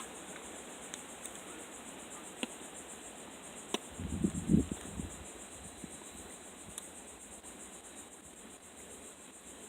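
Crickets trilling steadily in a high, fast-pulsing chorus. A sharp click comes right at the start, with a few fainter ticks and a short muffled low sound about four seconds in.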